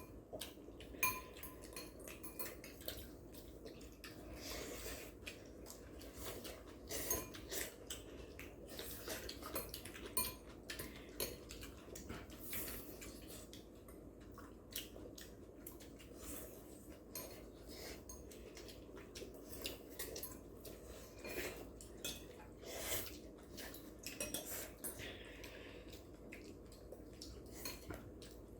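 Cutlery clinking against bowls and plates during a noodle meal, in many small irregular clicks throughout.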